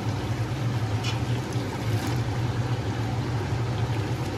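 Chicken masala cooking in an aluminium pot on a gas stove: a steady low hum under an even hiss, with a few faint soft sounds as chopped tomatoes go into the pot.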